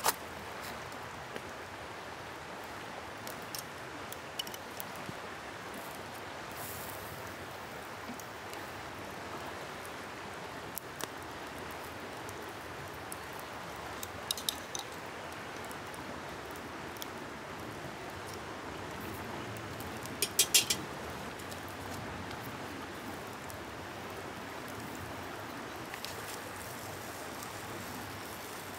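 Steady rush of flowing river water, with scattered sharp clicks and knocks over it; a quick run of four knocks about twenty seconds in is the loudest.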